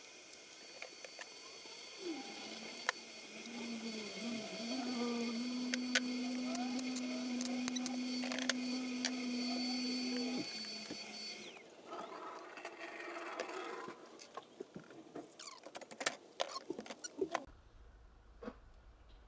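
A power tool running steadily with a high hiss and a low hum, switched off about twelve seconds in. Light clicks and handling noises follow.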